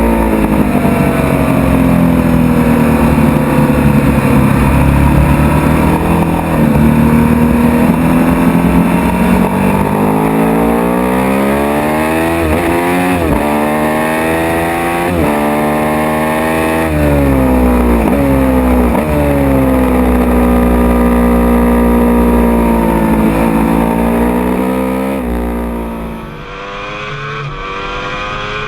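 Sport motorcycle engine heard on board at racing speed, revs falling away and climbing again, then rising and dropping sharply several times in quick succession through gear changes. About three quarters of the way through, the sound changes abruptly and gets quieter.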